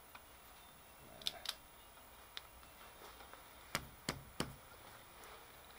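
Sharp metallic clicks and knocks from a hand working a milling vise and its wrench: a few light clicks in the first half, then three louder knocks about a third of a second apart around four seconds in.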